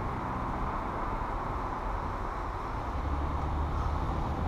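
Car driving along a road: steady road and wind noise with a low engine rumble that grows louder about three seconds in.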